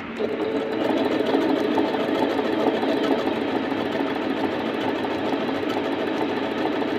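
Singer C5605 computerized sewing machine starting up and running steadily, stitching a short-length decorative pattern through fabric: an even motor hum with rapid, regular needle strokes.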